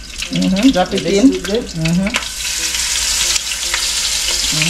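Turkey neck pieces sizzling and crackling in hot oil in a pot as they are dropped in; the frying hiss swells louder about two seconds in and stays steady.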